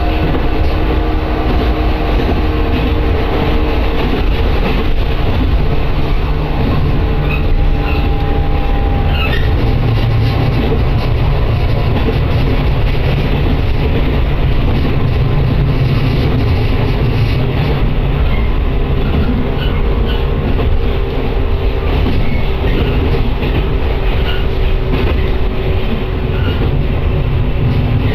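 Running noise of an electric train heard from inside the passenger car: a steady low rumble of wheels on rails with a few faint steady hums.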